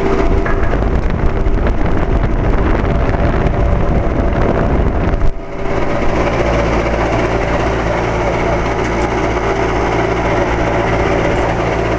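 2007 Carrier 2.5-ton central air-conditioner condensing unit running with a loud, steady hum and a rough, rattly mechanical noise. The owner believes the noise comes from the fan motor and takes it as a sign the unit is getting ready to fail. About five seconds in the sound briefly drops, then carries on steadier.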